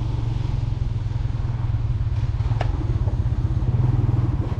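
Motorcycle engine running steadily while the bike is ridden, with an even low pulsing note. A single light click comes about two and a half seconds in.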